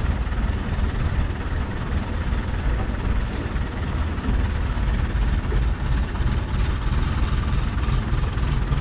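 Heavy diesel engine running steadily with a low, even drone.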